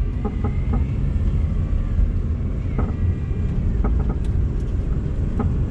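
Honda Accord driving with a steady low rumble and irregular short knocks and clicks. It is an unidentified noise from the right-side suspension that a replaced upper control arm has not cured.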